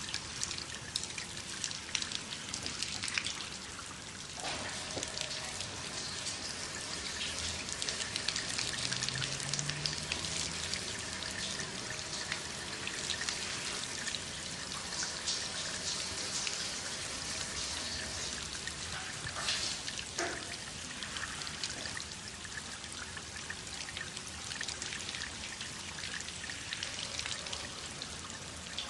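Water running from a tap and splashing over hands being washed, a steady spatter with now and then a sharper splash.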